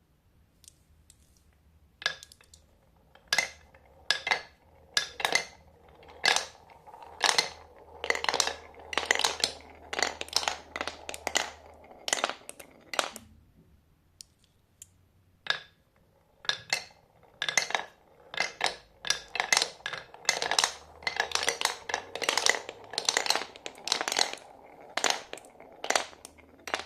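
Marbles clicking and clattering down a marble run: many sharp, irregular clacks, some in quick clusters, over a light rolling rattle. They thin out briefly about halfway through, then pick up again.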